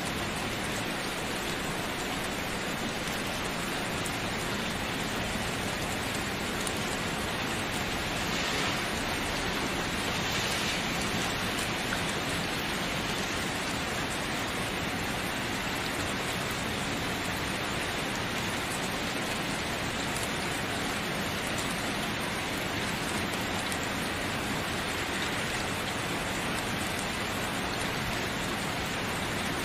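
Steady, continuous rainfall, an even hiss of rain falling on surfaces.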